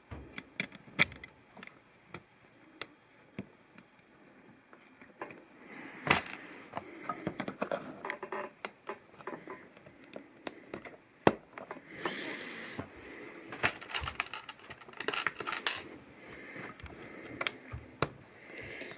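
LEGO plastic pieces being handled and fitted: irregular sharp clicks and taps, with stretches of rustling in between.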